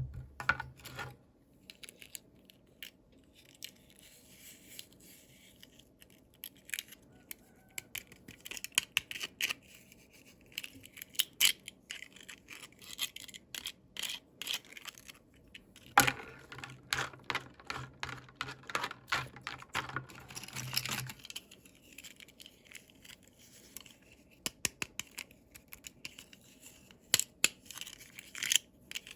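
Toy packaging being handled and opened: rustling and tearing, broken by many sharp clicks and taps, with a low buzz for several seconds past the middle.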